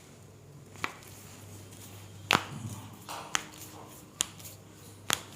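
A series of five sharp clicks or taps, spaced about a second apart, the second one the loudest, over a faint steady hum.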